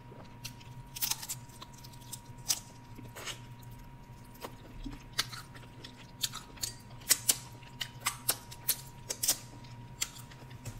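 Close-miked chewing of battered fried seafood: irregular sharp crunches and wet mouth clicks, more frequent and louder in the second half. A faint steady electrical hum runs underneath.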